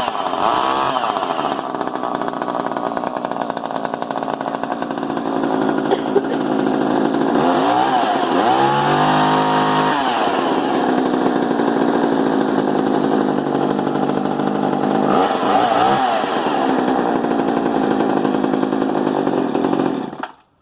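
Poulan 2000 two-stroke chainsaw running after being started, its engine revved up and back down a few times: briefly at the start, a longer rev held for about two seconds around eight seconds in, and a shorter one around sixteen seconds in. The sound cuts off suddenly near the end.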